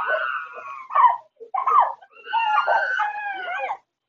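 A dog whining and yelping in high-pitched cries: one at the start, two short yelps around a second and just under two seconds in, then a longer wavering whine that stops shortly before the end.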